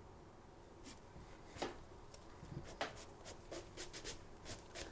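Faint rubbing and scattered small clicks of hands working a CB antenna cable through a tight protective cable sleeve. The clicks begin about a second in and come more often in the second half.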